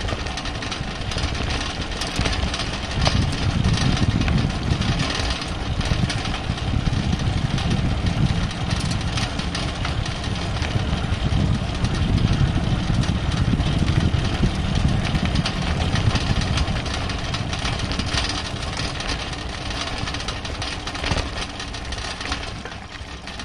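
Wind buffeting a rack-mounted microphone and bicycle tyres rolling on asphalt, a steady rumble with scattered small clicks and rattles.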